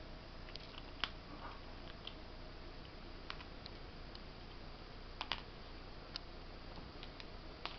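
Eurasian red squirrel eating corn kernels: sharp, irregular crunching clicks of its teeth cracking the kernels, the loudest about a second in and a quick pair just past the middle.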